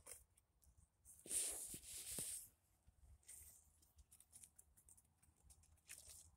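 Near silence, broken about a second in by a brief, scratchy rustle with a couple of small clicks, lasting about a second.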